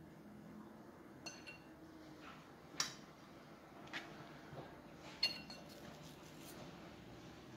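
About four light clinks of kitchenware, glass or metal, the ones near the start and near the end ringing briefly, over quiet room tone.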